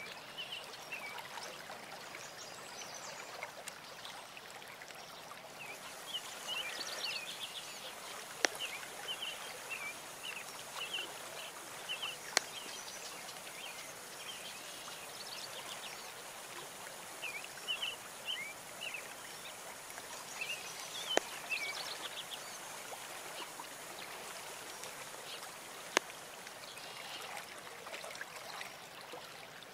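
Steady trickle of running water, with short high chirps in scattered clusters and a few single sharp clicks.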